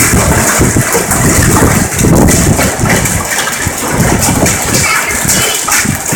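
Heavy hail and rain pelting pavement, grass and parked cars: a loud, dense, continuous clatter and hiss.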